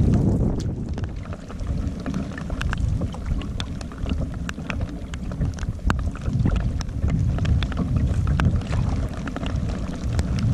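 Wind buffeting the microphone with a steady low rumble, and choppy lake water against a kevlar canoe under way. Many small sharp ticks are scattered through it.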